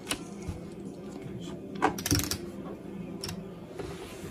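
Playing cards and casino chips handled on a felt blackjack table: a few short clicks, with a brief clattering cluster about two seconds in.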